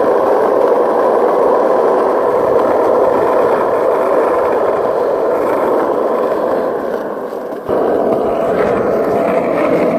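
Steady rushing noise of riding fast downhill on asphalt, with wheels rolling and wind buffeting the microphone. It dips briefly near the end and comes back suddenly.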